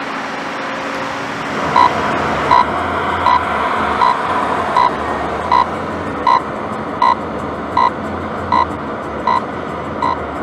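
Steady road noise of a moving car, with a short electronic warning beep repeating evenly about every three-quarters of a second from about two seconds in.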